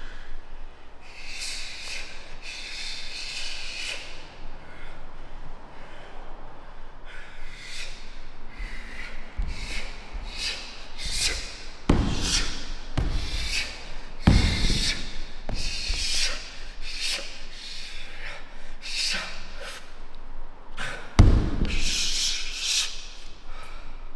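Kung fu practitioners performing a Ging Mo form: feet sliding and scuffing on the floor and uniforms swishing in short rushes. Heavy stamps come about twelve, fourteen and a half, and twenty-one seconds in, the last the loudest.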